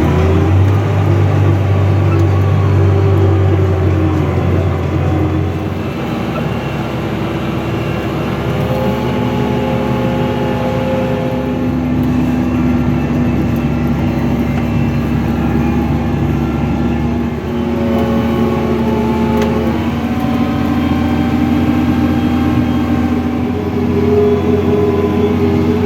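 Fendt 724 Vario tractor's turbocharged six-cylinder Deutz diesel running steadily under load while pulling a six-furrow plough, its engine note shifting in pitch a few times.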